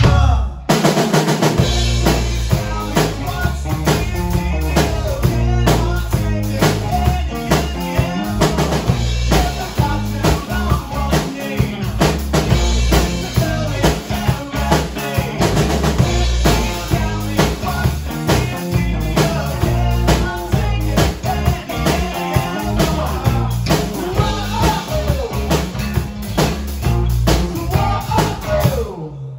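Rock band playing: electric guitar, electric bass and a drum kit with a steady pounding of kick and snare. The music stops abruptly near the end.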